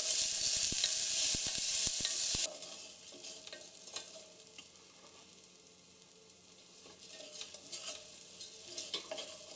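Washed mung beans sizzling in hot ghee in a stainless-steel pressure cooker as a wooden spatula stirs them, with sharp knocks of the spatula against the pot. The loud sizzle cuts off abruptly about two and a half seconds in, leaving a faint sizzle with occasional scrapes and clicks of stirring.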